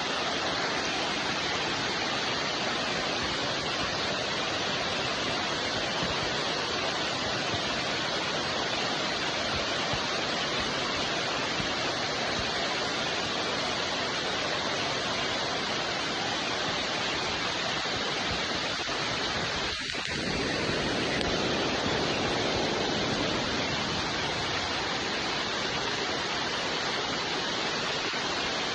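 Steady rain falling, a dense, even hiss with no single drops standing out. About twenty seconds in it dips briefly and comes back slightly louder.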